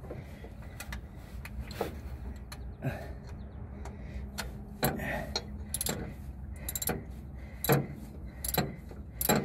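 Scattered metallic clicks and clinks of a wrench working as the bolts of a new mechanical fuel pump on a Pontiac 350 engine are tightened down, over a faint low hum.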